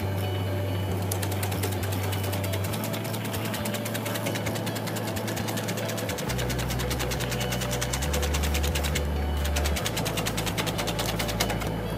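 Motorized cassava slicing machine running, its spinning blade disc making a rapid, even clatter as it cuts thin slices of cassava. The clatter pauses briefly about nine seconds in and then resumes.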